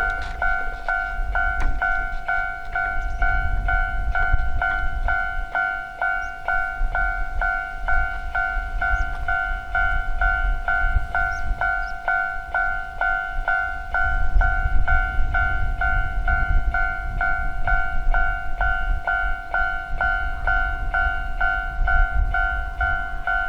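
Japanese railroad crossing's warning bell ringing in an even, two-tone 'kan-kan' rhythm, about two strokes a second. Under it is a low rumble, heavier in the first quarter and again in the last third.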